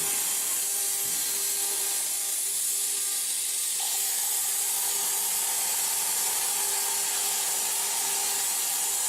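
CNC plasma cutter's torch cutting steel plate: a steady hiss with a steady hum under it, and a second, higher tone joining about four seconds in.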